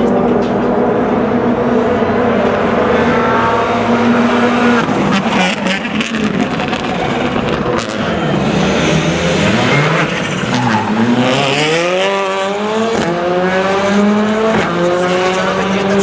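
Rally car engine at high revs, its pitch dropping about nine seconds in as the car slows for a corner, then climbing again in a series of steps as it accelerates and shifts up through the gears.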